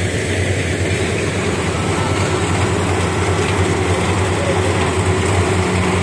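Rice combine harvester's engine running steadily under working load, a continuous low, even hum.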